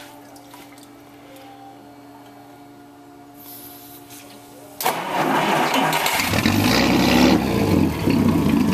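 Chrysler Crown flathead six marine engine cranked on its starter about five seconds in, catching within about a second and then running, on its first start after a decade out of use.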